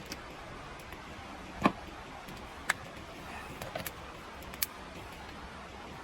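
Wood campfire crackling over a steady hiss, with a few sharp, irregular pops; the loudest comes nearly two seconds in.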